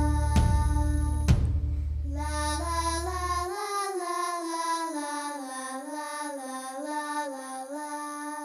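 Film score music: bass and percussive strikes break off about a second in, then a solo voice sings a slow melody over a low bass line that drops out soon after.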